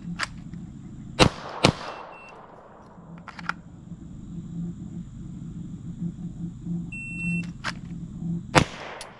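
Glock 48 9mm pistol shots outdoors: a quick pair about a second in, then a short beep about seven seconds in and another single shot near the end, each crack trailing off in echo. Fainter distant shots sound now and then.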